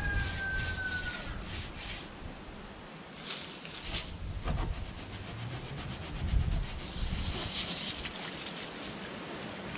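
Stiff-bristled brush scrubbing a wet dog crate tray in short scratchy strokes, with wind buffeting the microphone. Near the end a garden hose sprays water onto the tray.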